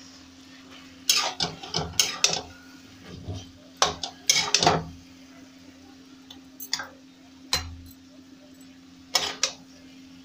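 A metal spoon scraping and clinking against a metal kadhai in a string of short scrapes as thick cooked curry is scooped out of the pan. A steady low hum runs underneath.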